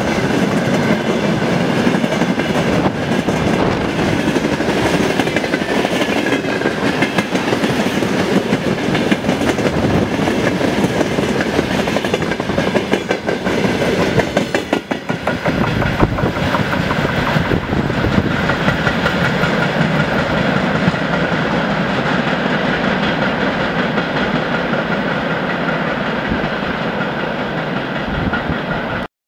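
Freight train wagons (tank cars, then flatcars loaded with timber) rolling past close by: a steady rumble with clickety-clack of the wheels over the rail joints. It dips briefly about halfway through and cuts off abruptly just before the end.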